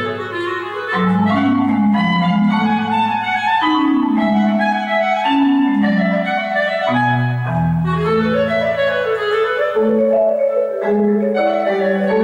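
Clarinet and marimba playing a duet: sustained clarinet lines over a stream of struck notes from a marimba played with four mallets.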